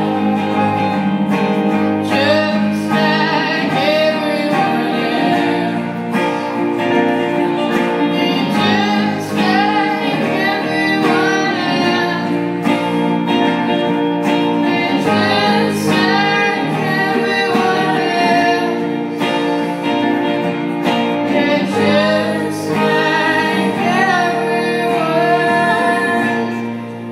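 A live band performance: a woman singing lead over strummed electric guitars and keyboard, heard from the audience in the room. The music dips a little in level near the end.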